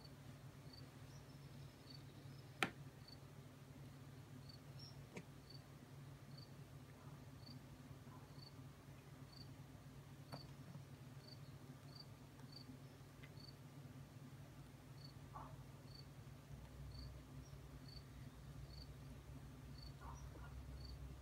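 Faint cricket chirping steadily, a short high chirp about twice a second, over a low background hum. A single sharp click sounds about two and a half seconds in.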